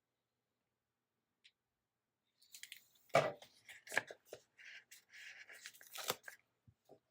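Sticker sheets being handled and a sticker peeled from its backing: about four seconds of paper crackling and rustling. It starts about two and a half seconds in, with two sharper crackles, one near the start and one near the end.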